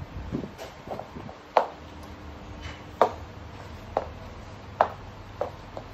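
Platform stiletto heels knocking on a wooden floor as she walks: a series of sharp single knocks, roughly one a second.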